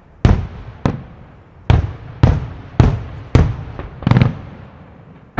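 Aerial fireworks shells bursting in a quick series, about seven loud bangs half a second to a second apart, each trailing off in a rumble.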